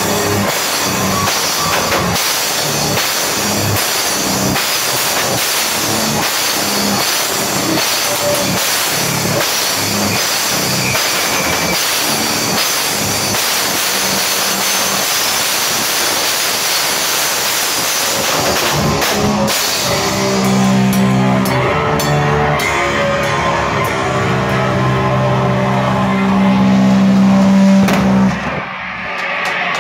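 Live beatdown hardcore band playing loud at close range, with fast drums, crashing cymbals and distorted guitar. About two-thirds of the way through, the cymbals drop out and slow, heavy guitar chords ring out in a breakdown. The song stops abruptly near the end.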